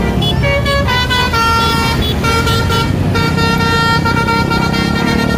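Basuri 'telolet' multi-tone bus horn playing a quick run of changing notes, then holding one note for about two seconds near the end, over a bus engine's low rumble.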